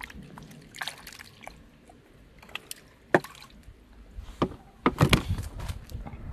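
Water sloshing and splashing as a plastic basin of live fish is emptied out, with a few sharp splashes, the loudest about three seconds in and a cluster near five seconds.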